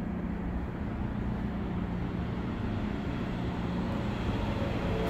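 Steady low rumble with a constant hum in an underground subway station while the track stands empty.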